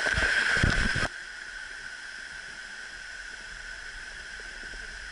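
Steady rush of water at a waterfall, louder with low thumps for about the first second and then dropping abruptly to a quieter, even rush.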